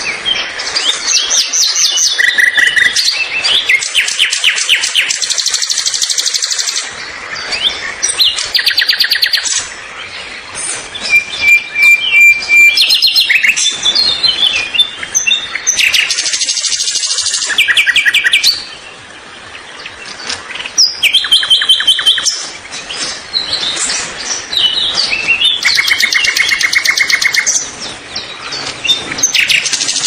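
Songbird singing: phrase after phrase of rapid trills and high chirps, with short pauses between phrases.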